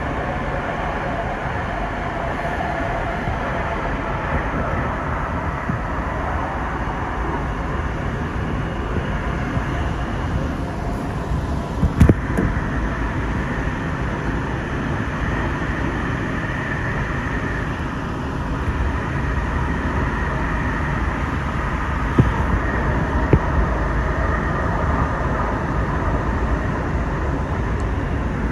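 Sound Transit Series 2 light rail car running, heard from inside: a steady rumble of wheels on rail, with a few sharp clicks or knocks, one about twelve seconds in and two more a little after twenty seconds.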